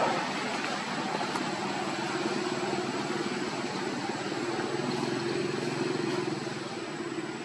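Steady low hum of an engine running, over a constant background hiss, a little stronger in the second half.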